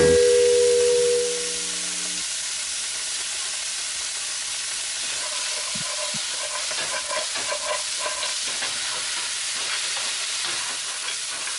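Crabs and sliced vegetables sizzling as they fry in a pan, stirred and tossed with a utensil that clatters faintly against the pan through the middle of the sizzle.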